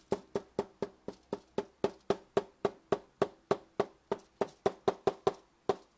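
A plastic craft-paint bottle shaken hard by hand, its contents knocking about four times a second. The shaking stops just before the end.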